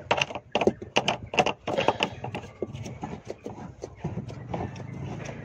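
Ford Escape's carpeted cargo-floor board being handled over the spare-tyre well: a quick series of knocks and clacks against the boot's plastic trim in the first couple of seconds, then quieter scraping.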